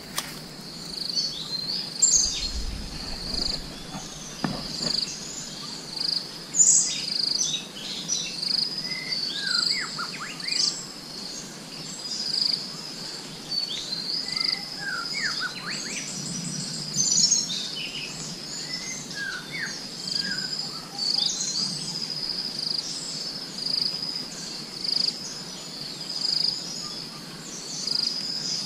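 Forest ambience: insects trill steadily at a high pitch, and over them come scattered short chirping bird calls, some as quick falling notes in small clusters.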